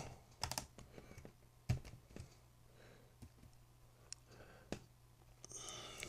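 Computer keyboard keys pressed a few times, scattered faint clicks as function keys are tried, over a faint steady low hum.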